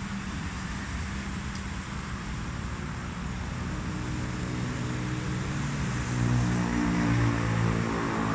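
A motor vehicle's engine running over steady outdoor background noise, its low hum growing louder about two-thirds of the way in.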